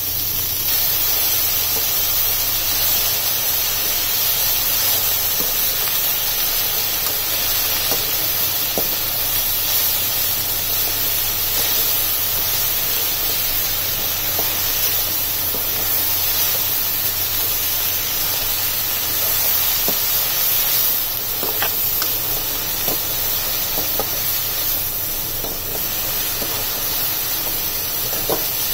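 Chopped spinach leaves, with onion, mustard seeds and urad dal, frying in hot oil in a pan: a steady sizzling hiss as the wet leaves wilt. It is punctuated in the second half by a few light knocks and scrapes of the spatula against the pan.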